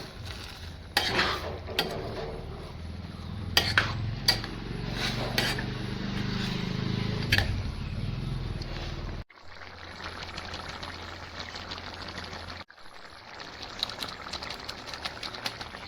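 Cooking in a pot: a metal utensil knocks and clinks against it several times, over a steady crackling sizzle.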